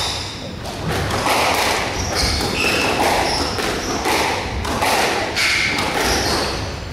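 Squash rally: the ball struck by rackets and smacking off the court walls in a series of sharp hits, with short high squeaks from the players' shoes on the court floor.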